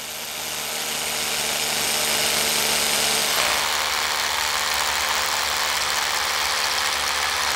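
Power drill boring into stone: a steady grinding whir that builds up over the first two seconds and then holds.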